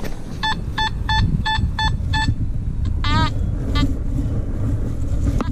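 Metal detector signalling a target: six short beeps of one steady pitch in quick, even succession, then a wavering tone about three seconds in and a shorter one just after, over a low rumble of wind and handling noise on the microphone.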